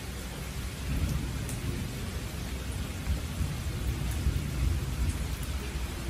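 Steady rain pattering, an even hiss with a few faint drop clicks, under a low rumble that swells about a second in and holds.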